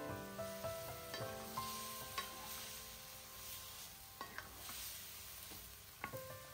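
Pork and vegetables sizzling in a hot stainless-steel wok as a spatula stirs them, with a few sharp clicks of the spatula against the metal pan.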